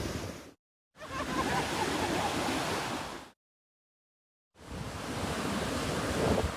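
Atlantic Ocean surf breaking and washing up on a beach, a steady rush of water noise. The sound cuts out to dead silence twice, briefly near the start and again for about a second in the middle.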